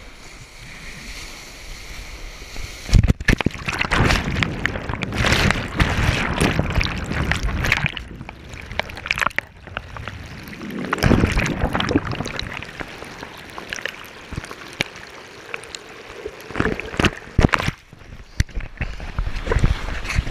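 Ocean surf breaking over and around a board-mounted action camera: water rushing, churning and splashing against it in loud surges with knocks, beginning about three seconds in after a quieter stretch of lapping water.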